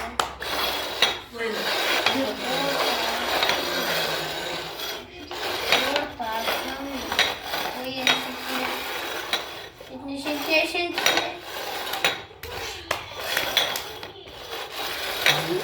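Cups being shuffled on a table top to hide a ball: a run of clattering knocks and scraping as they slide and bump together.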